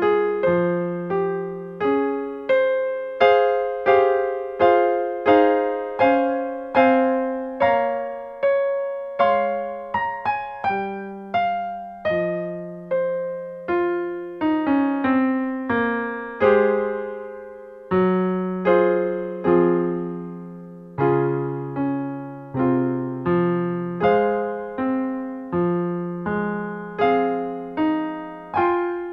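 Solo piano music: single notes and chords struck about once or twice a second, each left to ring and fade.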